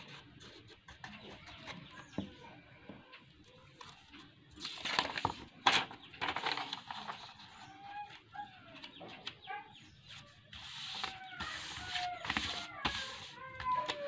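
Paper and cardboard rustling and crinkling as a sheet of colour paper is handled and smoothed flat on a table, loudest about five seconds in and again in the last few seconds. Behind it, a bird makes short clucking calls, most of them in the second half.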